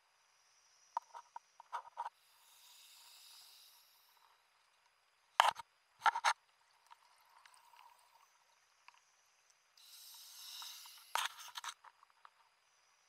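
Scuba diver breathing underwater on a regulator, two breaths: each starts with a hiss of air lasting a second or two and is followed by sharp, crackling bursts of exhaled bubbles.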